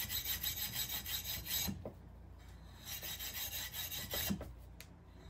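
Stainless steel scrubbie rasping in rapid back-and-forth strokes along the edge of a fused glass panel, smoothing off the rough edges that clear powder left between the glass layers. Two bouts of scrubbing with a short pause about two seconds in, stopping about four seconds in.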